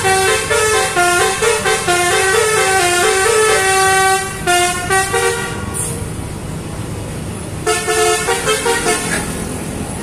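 Bus telolet horn, a Basuri multi-note horn, playing a koplo-style melody in quick stepped notes. It breaks off about five and a half seconds in and starts again briefly near eight seconds, over steady low noise.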